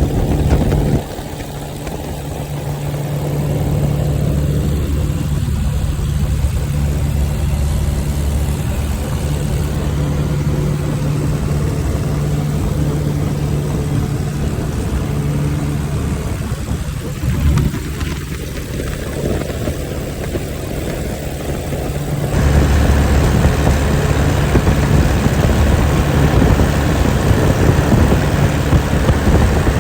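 Cub light airplane's piston engine droning steadily in flight. It gets quieter about a second in and suddenly louder again about three-quarters of the way through.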